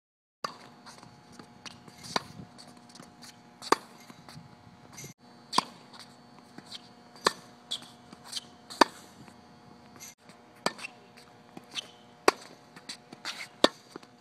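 Tennis ball struck by rackets in a volley exchange: sharp pops about every one and a half seconds, with fainter hits between them, over a faint steady hum.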